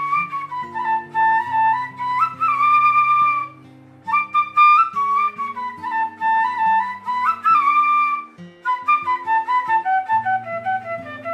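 Bamboo flute (bansuri) playing a melody in flowing phrases with slides between notes, pausing briefly twice and ending in a descending run near the end. Under it runs a low accompaniment of held notes that change every second or so.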